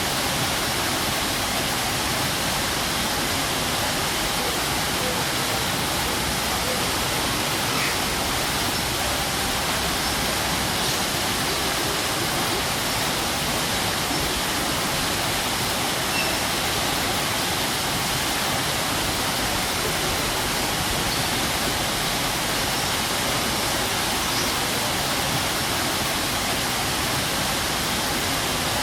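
A strong waterfall rushing, a steady, dense roar of falling water with no change.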